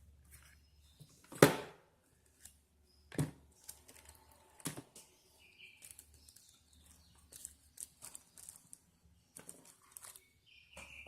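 Handling noise from a phone and its packaging being picked up and set down: several sharp knocks, the loudest about a second and a half in, with quieter clicks, taps and rustles between. A short high beep sounds briefly near the middle and again near the end.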